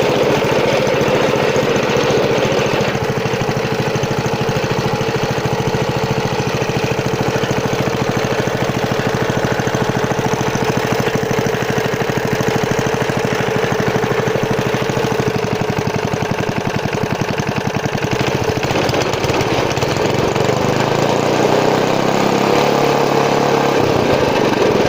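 A 3 HP Briggs & Stratton single-cylinder four-stroke petrol engine running steadily after its carburettor was rebuilt with a new diaphragm gasket. The firing is fast and even, and its tone shifts a little near the end.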